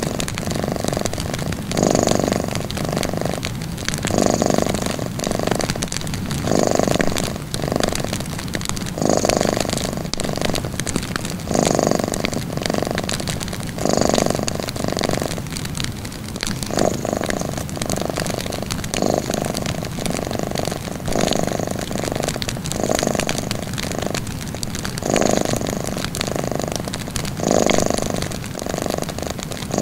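Domestic cat purring steadily, swelling and easing in a regular rhythm about every two and a half seconds as it breathes in and out. Faint crackling from a small wood fire runs underneath.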